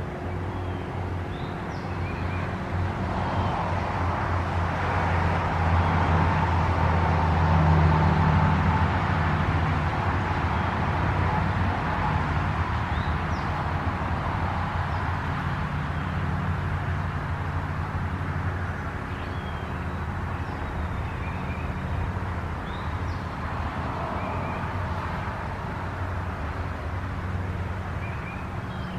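Outdoor ambience: a steady low rumble that swells about five to ten seconds in and then eases off, with small birds chirping on and off over it.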